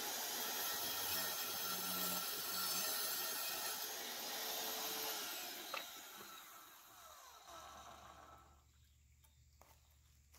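Diamondback tile saw's diamond blade cutting through a quartz stone ledger tile panel with a loud, steady grinding whine. A little over halfway through it clicks off and the motor winds down in a falling whine, leaving a low hum and a few small knocks as the cut stone is handled.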